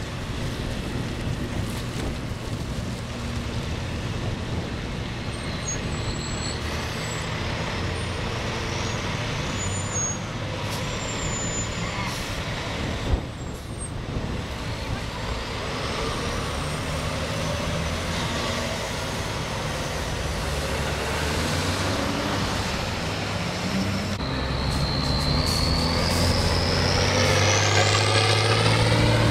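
Fire trucks driving past one after another, their diesel engines running steadily. Near the end a siren rises in pitch for a few seconds and then falls, while a three-axle brush truck passes close with its engine loud.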